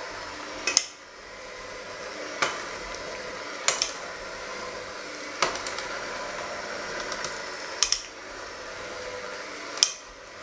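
Electric hand mixer running steadily, its beaters whirring through a thick mixture in a stainless steel bowl. About six sharp clinks, a second or two apart, come as the beaters knock against the side of the metal bowl.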